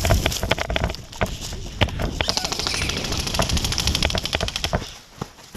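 Airsoft gunfire: scattered sharp snaps at first, then a fast, even rattle of full-auto fire from about two seconds in, stopping near the end, over rumbling handling and movement noise.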